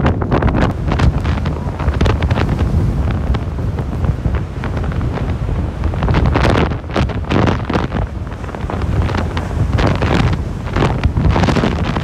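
Strong gusting wind buffeting the microphone with a heavy, uneven rumble, over storm waves breaking and crashing against a concrete breakwall.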